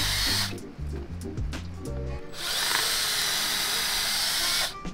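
Cordless drill boring a vent hole through a coconut shell: a short run that stops about half a second in, then a longer run of about two seconds that cuts off just before the end. Background music with a low beat plays under the first half.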